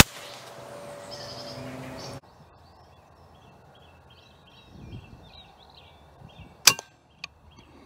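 A single sharp shot from a Daystate pre-charged air rifle near the end, followed about half a second later by a fainter smack as the pellet strikes the rabbit. Before the shot, birds chirp in the background.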